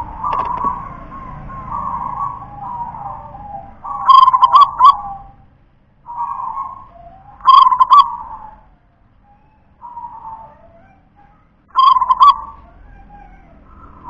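Zebra dove (perkutut) singing its rolling coo: three loud phrases about four seconds apart, with softer cooing between them.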